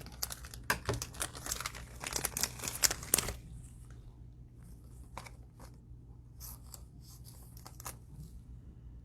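Plastic cellophane wrapper of a trading-card pack crinkling and tearing open, dense for the first three seconds or so, then scattered lighter crinkles and clicks.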